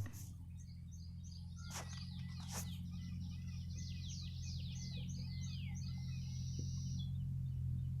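Small birds chirping: a run of quick, high, down-slurred notes through the middle, then a fast, regular high trill near the end, over a steady low hum.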